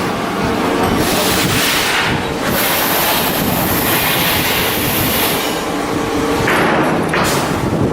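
Loud, continuous rattling and clattering of steel shipbuilding work and machinery, with a high hiss for a few seconds in the middle.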